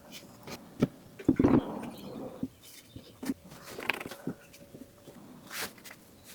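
Scattered light knocks and clicks of wooden chair parts being handled and fitted together, with a heavier cluster of thumps about a second and a half in.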